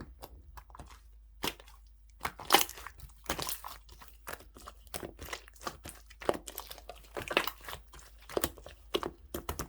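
Hands squishing and stretching a clear, jelly-textured slime, making irregular wet crackles and squelches a few times a second with short pauses between them.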